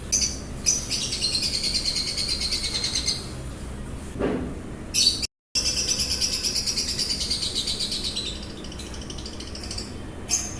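Lovebirds chirping, with sharp single chirps and long runs of rapid, high chattering trills. The sound drops out completely for a moment near the middle.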